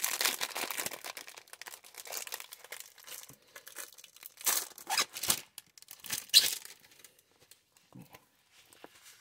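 Clear plastic packaging crinkling and rustling as a rolled diamond-painting canvas is handled in its bag, in irregular bursts, with the loudest crackles around the middle and fainter rustling near the end.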